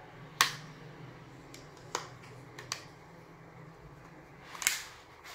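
Plastic back cover of an Infinix Smart 4 phone being pried off by fingernail: a handful of sharp plastic clicks as its clips let go. The loudest comes about half a second in, and a quick cluster comes near the end.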